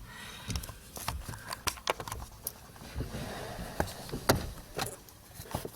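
Irregular small clicks and knocks of plastic steering-column trim and a wiring connector being handled, with some rustling.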